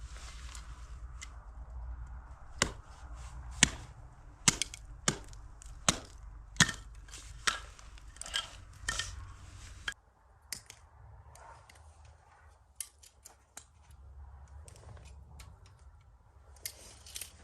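About ten sharp chopping strikes with a blade, roughly one a second for several seconds, then a few lighter scattered knocks and clicks.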